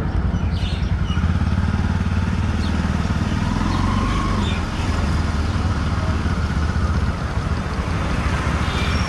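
Motorcycle engine running at low speed as the bike is ridden slowly: a steady low engine note.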